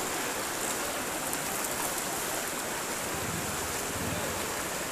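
Floodwater rushing across a road, a steady, even rush of water.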